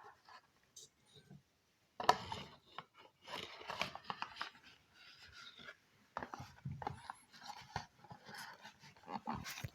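Hands handling a cough-syrup box and its plastic measuring cup, making irregular rustling, scraping and light knocks. It is sparse at first and busier from about two seconds in.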